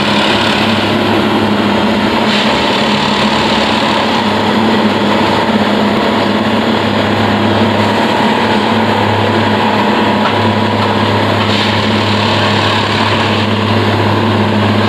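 Railway track-tamping machine running steadily, a constant engine hum.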